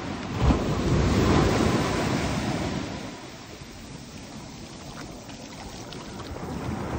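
Small waves washing up a sandy shore, with wind buffeting the microphone. It is loudest for the first three seconds or so, then eases off.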